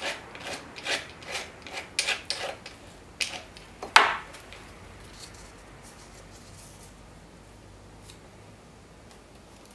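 Short scraping strokes rubbing on the painting's paper surface, about two a second, then one sharp, loud scrape of a palette knife on the paint palette about four seconds in as it picks up water-based cold wax medium. After that only faint taps and rustles of paper being pressed down.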